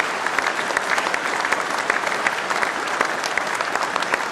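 Audience applauding: dense clapping from many hands.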